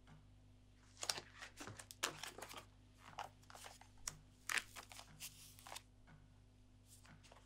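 Paper pages of a hand-bound sketchbook rustling as they are leafed through: a quick run of crisp page flips over about five seconds, over a low steady room hum.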